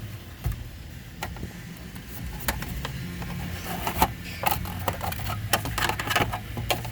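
Plastic dashboard trim panel being handled and fitted into the dash: scattered light clicks and knocks of plastic, more frequent in the second half, over a low steady hum.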